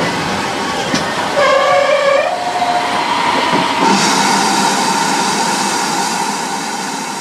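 GWR 4575-class 'Small Prairie' 2-6-2T steam locomotive running, with a couple of clicks and a brief pitched tone that steps up in pitch about a second and a half in. About four seconds in, a sudden loud hiss of escaping steam starts and carries on as steam billows around the engine.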